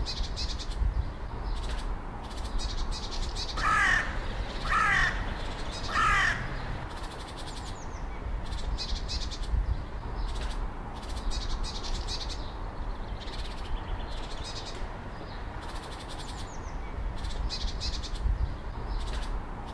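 A crow cawing three times, about a second apart. Quick high chirps from small birds go on throughout, over a low wind rumble.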